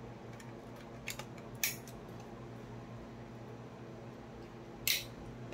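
A few sharp plastic clicks as RJ45 plugs are handled and snapped into a network cable tester, the loudest near the end.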